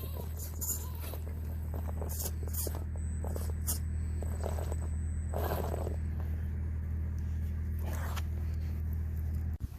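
Electric RC rock crawler's motor and gearbox running at a steady low speed, with scrapes and clicks from its tyres and chassis on hard surfaces. The hum cuts off suddenly near the end.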